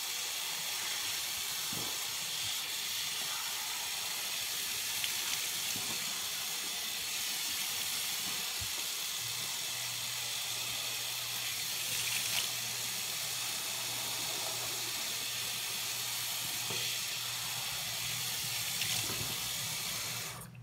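Bathroom sink tap running in a steady stream, with a few light splashes from hands working in the water. A low hum joins about halfway through, and the water cuts off suddenly near the end.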